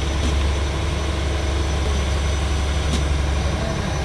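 Fishing trawler's diesel engine running with a steady low drone. Two light clicks from the aluminium cooking pot being handled, one just after the start and one near the end.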